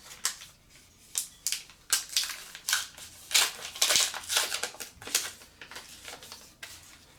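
A foil trading-card booster pack wrapper is handled and opened, giving irregular crinkling crackles that come thickest in the middle, with cards being shuffled in the hand.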